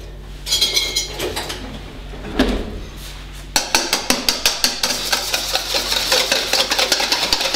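Wire whisk beating egg and sugar in a stainless steel mixing bowl: rapid, even metallic clicking strokes, about five a second, starting about three and a half seconds in. Before that, a short clatter of utensils being handled.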